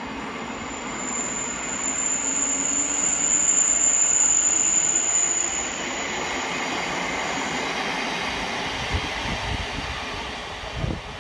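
Thameslink electric multiple unit train running at a station platform: a steady rush of train noise that swells to its loudest about four seconds in and then eases, with a thin high whine through the first seven seconds or so.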